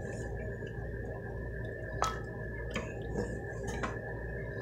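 Wooden spoon stirring and scooping chicken stew in a pressure cooker's metal inner pot: wet sloshing of the broth, with a few sharp knocks of the spoon against the pot about two to four seconds in.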